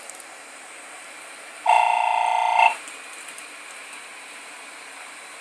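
A buzzing tone, about a second long, sounds once about two seconds in, over a low steady hiss.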